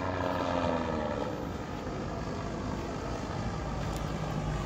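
Small single-engine flying boat's propeller engine running as the plane flies past overhead, its pitch falling slowly as it goes by.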